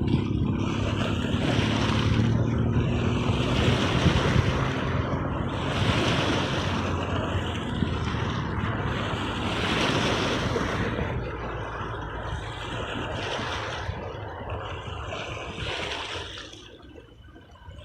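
Sea waves washing onto the shore in repeated surges every couple of seconds, with wind on the microphone. The wash dies down near the end.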